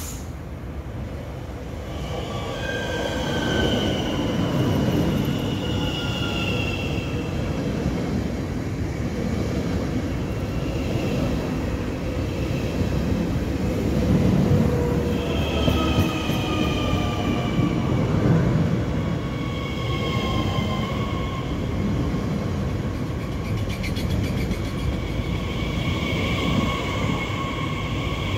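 Electric commuter train pulling into a station and slowing, with a low rumble of wheels on the track. Several whining tones from its traction motors slide down in pitch again and again as it brakes.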